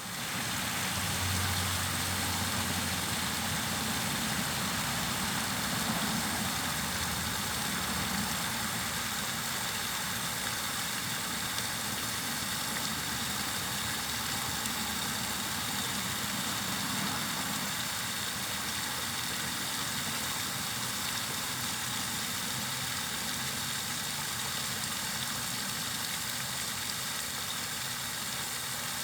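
Steady white noise for sleep: an even, unchanging hiss spread through the upper range, with a faint low hum beneath it that is strongest in the first few seconds.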